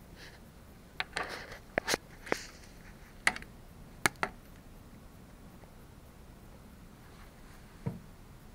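Handling sounds: a run of sharp clicks and taps mixed with brief rustling over the first half, then one soft low thump near the end.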